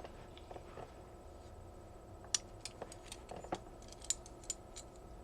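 A scatter of sharp clicks and taps, about eight, mostly in the second half, from handling a heavy vintage Frost Cutlery balisong with brass-fitted handles and latch.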